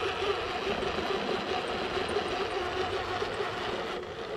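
Electric motor and gear transmission of a custom SCX10-based 1/10 scale RC crawler, with a 2300kv motor, running steadily with a rough, whirring drone while the truck crawls.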